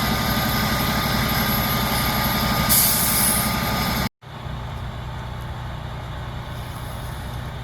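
Heavy truck engine idling with a steady low throb and a short burst of air hiss about three seconds in. After an abrupt cut, a quieter engine keeps idling.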